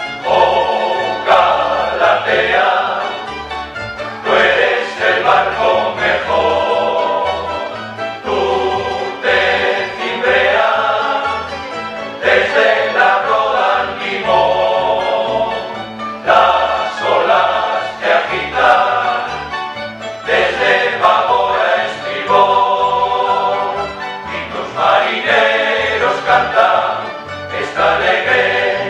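Male choir singing with guitars and other plucked string instruments accompanying, in phrases of about four seconds, each starting strong and then fading.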